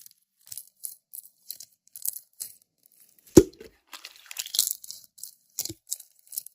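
Slime being pressed and worked by hand, giving a string of short crackling, crunching pops, with one louder pop about three and a half seconds in.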